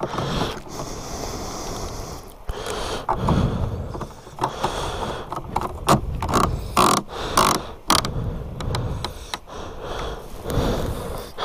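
A plastic gas can and its spout being handled: scattered clicks and scraping, with a cluster of sharp plastic clicks in the middle.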